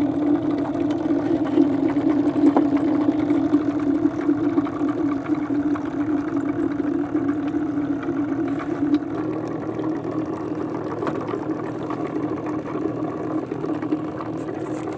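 Small boat's engine running steadily as the boat travels, a constant mid-pitched hum that eases a little about halfway through.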